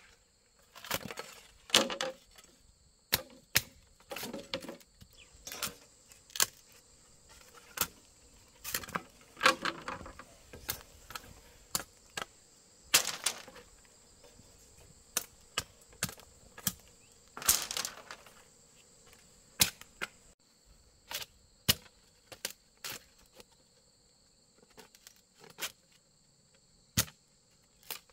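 Bamboo being worked by hand: irregular sharp knocks and cracks about a second apart, with a few longer rasping bursts. Insects chirr steadily throughout.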